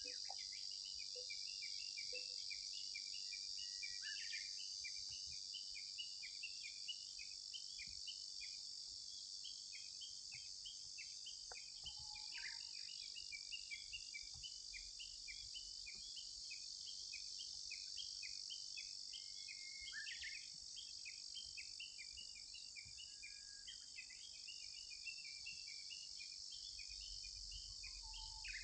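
Insects shrilling steadily in a high, even drone, with a dense scatter of short, high chirps repeating throughout.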